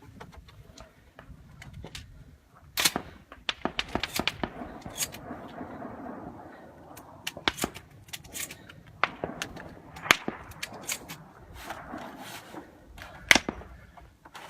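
Shotgun firing sharp shots in quick strings: a first shot about three seconds in, a fast run of several within a second just after it, then more shots spaced out through the rest.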